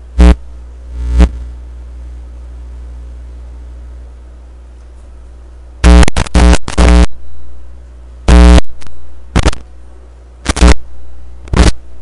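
Electric zap sound effect: short, loud buzzing bursts over a low steady hum, two near the start, then a quick run of about four zaps around the middle and several more scattered toward the end.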